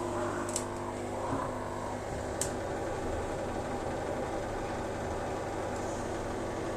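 Indesit IWSD 5105 washing machine running with a steady hum and whir, with two sharp clicks about half a second and two and a half seconds in. The machine is throwing error F01, which the repairman traces to a short-circuited motor triac.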